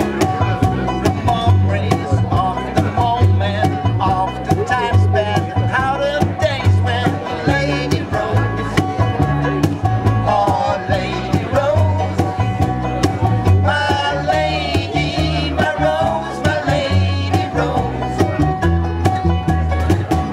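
A live band playing a song: a plucked double bass keeps a steady repeating bass line under guitars and drums, with a wavering melody line on top.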